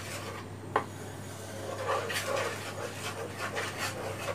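Wooden spatula stirring and scraping a milk mixture around a non-stick pan, with one sharp knock of the spatula on the pan about three-quarters of a second in, then quick repeated scraping strokes, about four a second.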